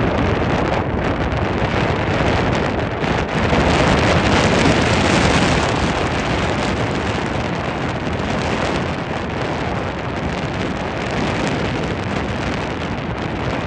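Wind rushing over the microphone of a speedboat running along a river, a loud steady rush of noise with the boat's motor and water churning beneath it.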